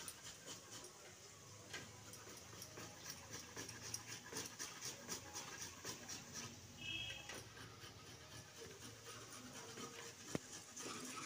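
Fresh ginger rubbed by hand on a stainless-steel box grater: faint, quick rasping strokes in a steady rhythm. There is a brief high squeak about seven seconds in and a sharp click near the end.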